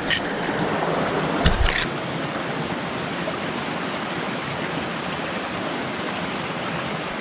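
Creek water flowing in a steady, even rush, with a few short knocks and a low thump in the first couple of seconds.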